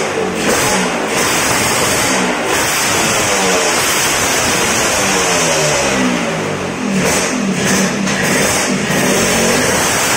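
Racing Vespa scooter's two-stroke engine revved hard on a chassis dyno during a power run: short throttle blips, then a longer pull up through the revs and back down in the middle, then more blips near the end.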